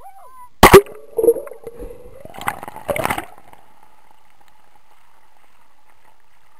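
Seawater splashing and gurgling over a camera's microphone as it plunges under the surface, with a few sharp splashes in the first three seconds. Then the muffled stillness of being underwater, with a faint steady hum.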